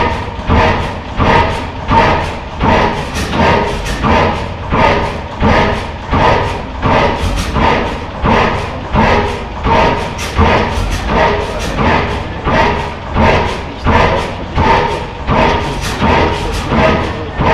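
Large horizontal stationary gas engine running steadily, a regular beat of about two pulses a second over a low rumble.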